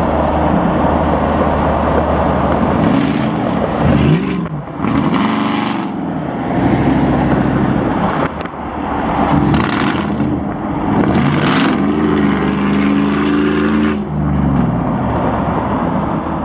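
Pickup truck engines accelerating hard, their pitch climbing and then dropping off several times as the revs rise and fall, with loud rushing noise mixed in.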